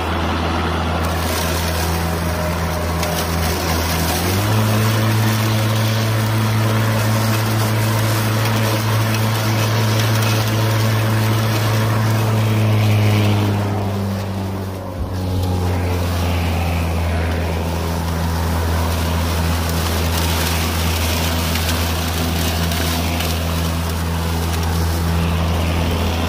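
Makita 18V X2 (36V) brushless lawn mower running as it cuts very tall grass: a steady motor and blade hum over the rush of cut grass. The hum steps up in pitch about four seconds in as the mower shifts into its high-speed mode for heavy grass, then drops back to the lower speed around fifteen seconds in.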